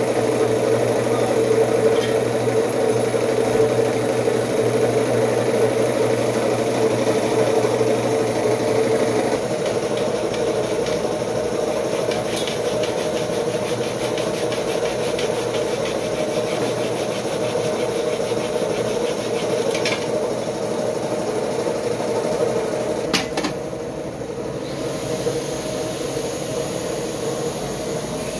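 Steady mechanical hum of an engine running, its lower part dropping away about nine seconds in, with a few sharp knocks and clicks of work in the second half.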